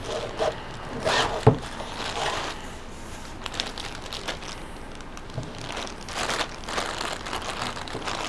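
Clear plastic bag crinkling and rustling as the tripod extender arm inside it is handled, mixed with the nylon carrying case rustling. A single sharp knock about one and a half seconds in.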